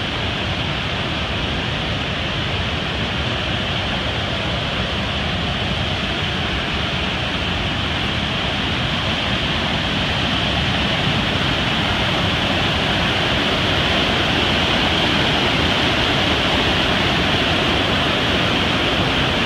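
River waterfall: white water pouring over broad rock ledges with a loud, steady rush that grows a little louder through the first half and then holds.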